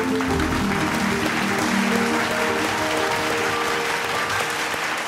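Audience applauding steadily, over instrumental background music.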